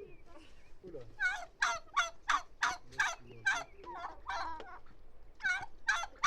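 A turkey calling: a run of about ten loud, evenly spaced notes, roughly three a second, starting about a second in. After a short pause a second run begins near the end.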